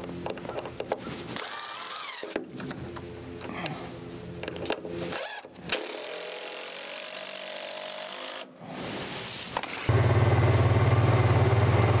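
Cordless drill driving screws into wooden battens in short runs, with a steadier whine for a couple of seconds in the middle. About ten seconds in, a utility vehicle's engine takes over, running steadily and much louder.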